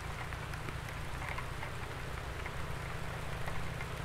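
Steady rain hiss with faint scattered drop ticks over a low rumble.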